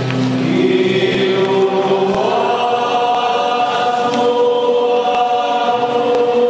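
A church choir and congregation singing a slow hymn together, in long held notes that step to a new pitch every second or two.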